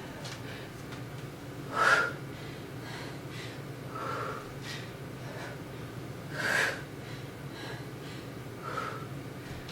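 Sharp, forceful breaths of a person exercising through dumbbell deadlift reps: two loud exhalations about two and six and a half seconds in, with two softer breaths between and near the end, over a steady low hum.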